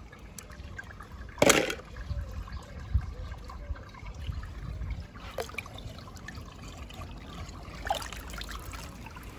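Water trickling and lapping in a shallow tub as a small die-cast toy car is moved through it, with one short sharp sound about a second and a half in and a few smaller splashes later.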